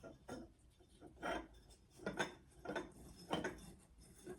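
Faint handling noises: about six light clinks and rubs, spaced a half second to a second apart, as the bird cage and its cord are handled.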